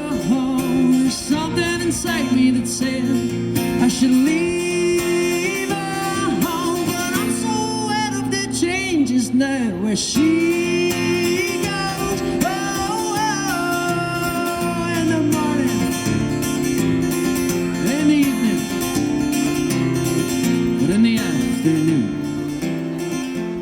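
Acoustic guitar strummed under long, held sung notes with no clear words, the closing stretch of a live busking song. The music eases off near the end.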